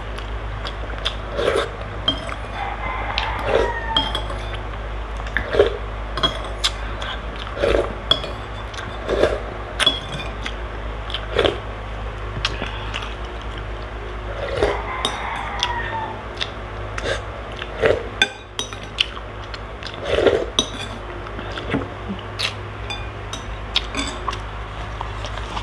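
Metal spoon clinking and scraping against a glass soup bowl as broth is spooned up, with eating and sipping sounds every couple of seconds.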